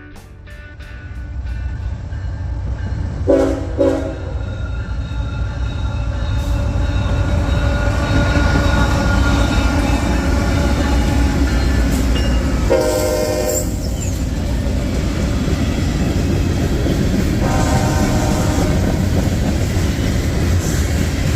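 Diesel freight train rumbling past, its sound growing louder over the first several seconds and then holding steady. The locomotive's multi-note horn sounds two short blasts about three seconds in, then two longer blasts around the middle and later on.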